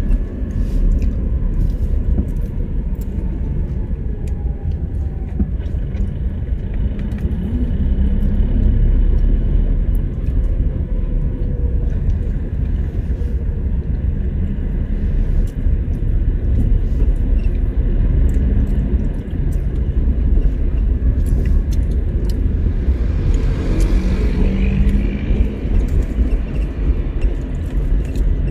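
A car driving along a city street, heard as a steady low rumble of road and engine noise. About three quarters of the way through, a brief swell of higher-pitched noise rises over it.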